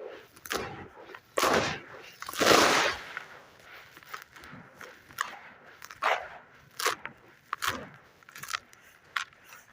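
Hand-made lumps of gritty red sand crunching and crumbling in water. There are two heavy, drawn-out crunches in the first few seconds, then a run of sharper, irregular crackles and snaps.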